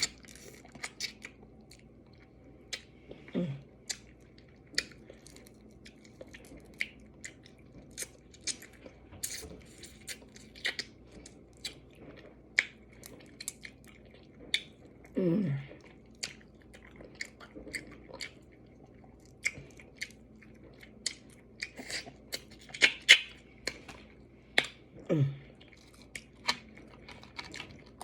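Close-up chewing and smacking of someone eating crab, with many irregular wet clicks and crunches. Three short sounds slide down in pitch, spaced roughly ten seconds apart.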